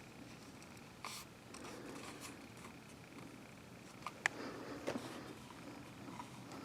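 Rifles being handled: a few light clicks and knocks over faint room hiss, the sharpest click a little after four seconds in.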